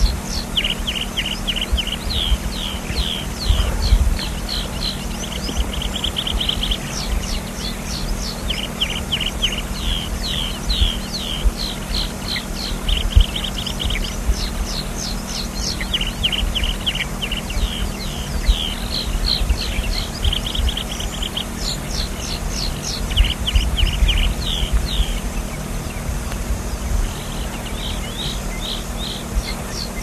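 Alpine pipit singing: runs of quick downslurred notes and a fast trill, each run several seconds long, broken by short pauses, over a low rumbling background.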